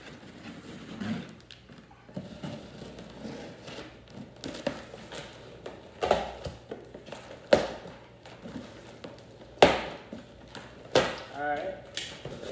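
A large cardboard shipping box being opened: the packing tape is slit and the flaps are pulled apart, with rustling and scraping cardboard and several sharp snaps as the flaps come free.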